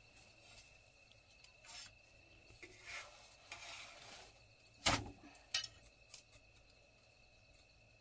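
A few scattered knocks and rustles of things being handled, the loudest a sharp knock about five seconds in, over a faint steady high tone.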